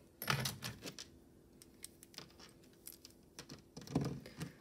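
Light clicks and rustles of costume jewelry being handled on a tabletop, with a short cluster near the start and another near the end as a metal pendant on a cord is picked up.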